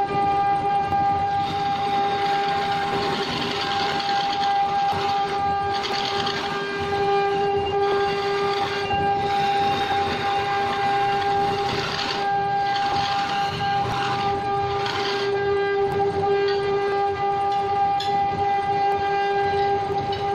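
Wood lathe running with a steady, high-pitched hum while the spinning wooden vase is sanded by hand. A scratchy hiss rises and falls every few seconds as the abrasive is pressed against the wood.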